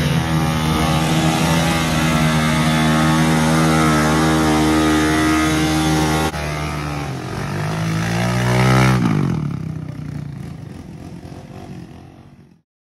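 ATV engine running at a steady pitch, then, after a cut about six seconds in, an ATV engine revving up close, rising in pitch and then falling away as the sound fades out near the end.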